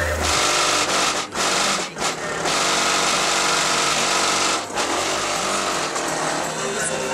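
Loud harsh buzzing rattle of a car's body panels shaking under extremely loud subwoofer bass during an SPL run, with a few short breaks.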